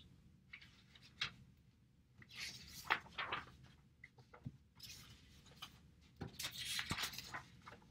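Sheets of printed paper being handled and turned over: quiet rustling and swishing in a few short spells, the longest near the end, with a few light taps.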